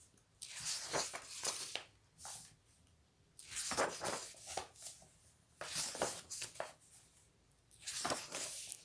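Paper pages of a paperback coloring book turned by hand, one after another, each turn a brief swishing rustle, several in a row with short quiet gaps between.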